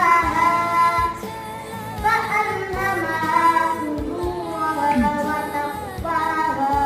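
A child's voice singing long, ornamented phrases with wavering, gliding pitch, with faint low knocks underneath.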